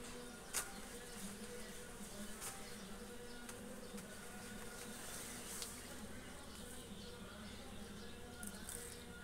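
Bees buzzing, a faint steady wavering hum of many insects, with one sharp tap about half a second in.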